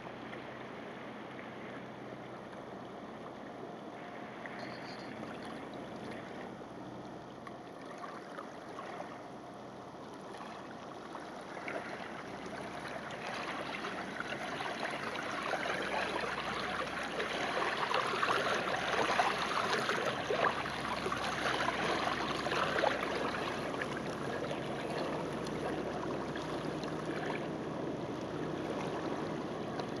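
Fjord water lapping and splashing against a stony shore, a steady wash of small splashes that grows louder about halfway through.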